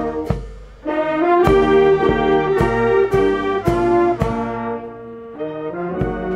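Brass band playing held chords over a steady drum beat, with a short drop in volume about half a second in.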